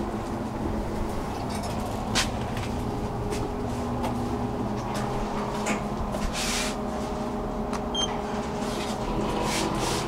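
KONE passenger elevator boarded and riding between floors: a steady machinery hum with scattered clicks, a brief rush of noise a little past six seconds in, and a short high beep about eight seconds in.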